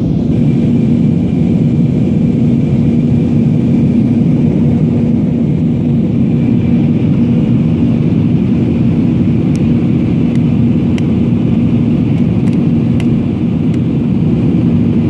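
Steady cabin drone of an Airbus A320 in flight, heard at a window seat: jet engine and airflow noise with a low hum and a faint high whine. A few light clicks come in the second half.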